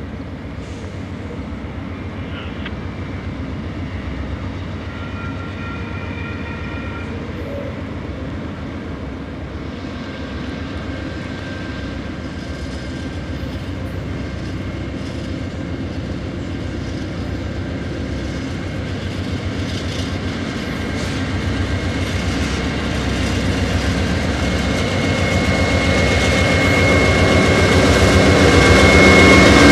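Union Pacific freight train's lead diesel locomotives approaching and passing close by, their engine rumble growing steadily louder. It is loudest near the end as the lead units draw level, and a thin steady high whine appears over it.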